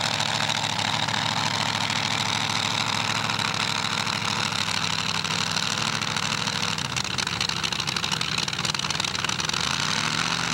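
Supercharged engine of a modified pull truck idling steadily as the truck creeps along; its note wavers briefly about seven seconds in, then settles back.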